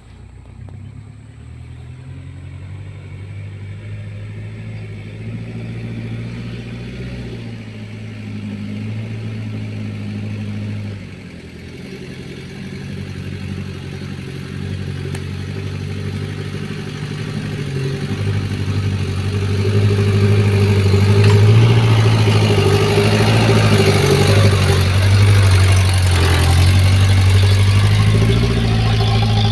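Daihatsu Taft GT engine labouring uphill under a heavy load, its note growing louder over time with a brief drop about eleven seconds in. The uploader calls the engine coughing (batuk) on the climb.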